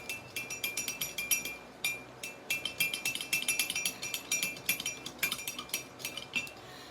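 Spoon stirring a drink in a glass, clinking quickly and repeatedly against its sides with a couple of brief pauses, then stopping shortly before the end.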